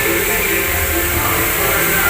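Music with short plucked-string notes over a steady low hum.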